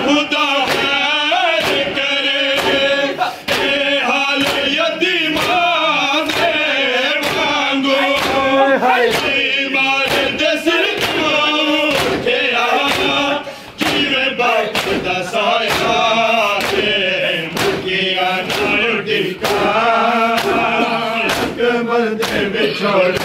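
Men's voices chanting a Punjabi noha together, with the regular sharp slaps of hands striking bare chests in matam keeping time.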